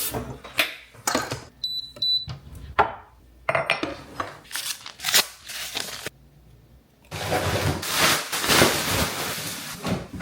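Dishes and silverware clinking and clattering as a dishwasher is unloaded, the silverware still hot from the cycle. There are two short high beeps about two seconds in, and a denser run of clatter near the end.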